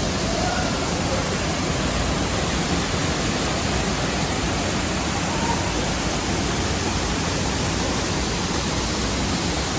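Waterfall's falling water rushing as a steady, even noise with no breaks.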